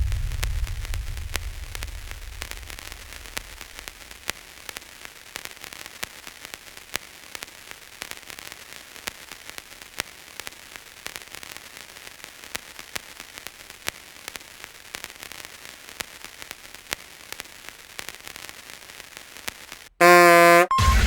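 Static sound effect: a steady hiss with irregular crackling clicks, like an untuned radio or TV. A low rumble fades out over the first few seconds, and near the end a short, loud pitched cartoon-style sound cuts in.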